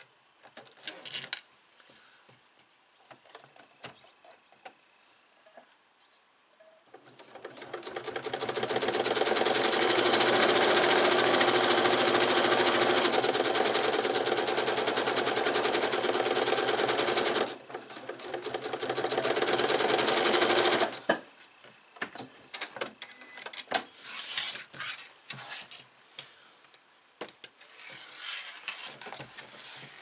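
Electric sewing machine stitching fabric: the motor speeds up about seven seconds in, runs fast and steady for about ten seconds, dips briefly, then runs again for a few seconds and stops. Light clicks and rustles of the fabric being handled come before and after the stitching.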